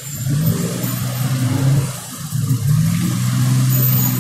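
Truck engine accelerating, heard from the cab: the engine note rises in pitch, drops about two seconds in as from a gear change, then climbs again and holds steady.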